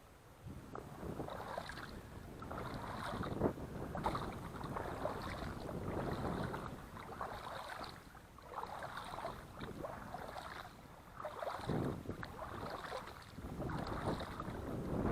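Water swishing and splashing in irregular strokes, with wind buffeting the microphone.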